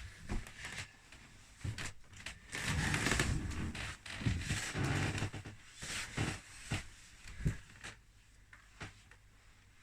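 Snoring: two long, noisy breaths of about a second each, a few seconds in, with scattered small clicks around them.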